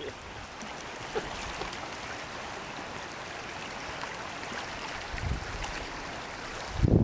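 Wind over an open lake and small waves lapping on a stony shore: a steady hiss. Gusts buffet the microphone with low rumbles about five seconds in and again near the end.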